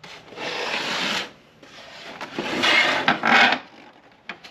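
Hands rubbing and scraping on a plastic printer body while fitting its power cord: two scraping spells of about a second each, then a few light clicks near the end.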